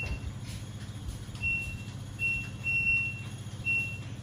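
Buzzer on a washing machine's electronic control board, powered up on the bench, giving four short high beeps at uneven intervals over a steady low hum.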